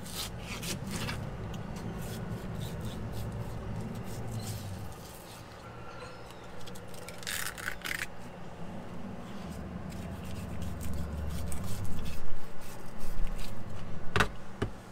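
A knife cutting and scraping through a blackfin tuna's skin and flesh on a concrete cleaning table, in short rasping strokes, with two sharp clicks near the end.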